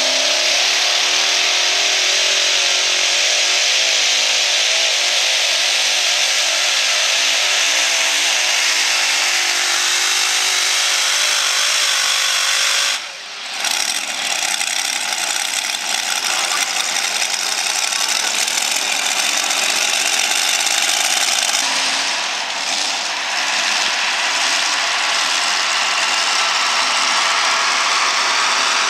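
Multi-engine modified pulling tractor engines running loud at full throttle while pulling the sled, their pitch wavering as the engine speed changes. The sound breaks off for a moment about 13 seconds in, then carries on just as loud.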